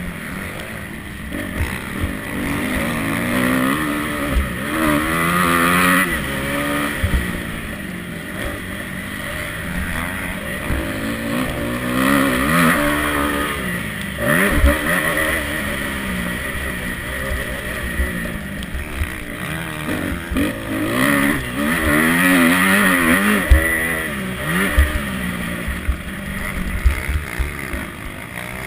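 Motocross bike engine heard from on board, revving up and dropping back again and again as the rider accelerates, shifts and brakes through the corners, with short low thumps on the microphone.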